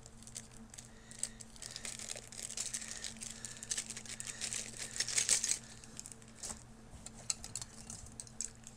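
Clear plastic bag crinkling and rustling as it is handled and pulled open, loudest about five seconds in, then a few scattered small crinkles and clicks.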